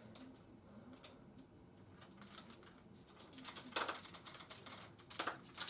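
Faint clicks and taps of plastic parts from a plastic Transformers combiner figure being handled. Mostly quiet at first, then a quick cluster of clicks about three and a half seconds in and another just past five seconds.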